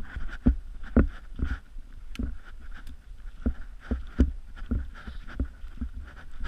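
A hiker's footsteps on a snow-dusted mountain trail: a steady walking rhythm of dull thumps, about two steps a second, with a few sharper clicks among them.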